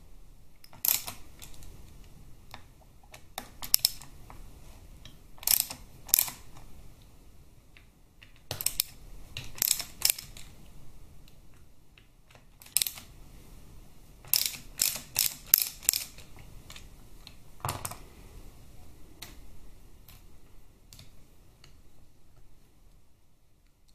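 Hand ratchet driving a Torx bit on an extension, clicking in short, irregular bursts as it backs out the Torx screws on a Harley-Davidson Twin Cam 88 cam support plate.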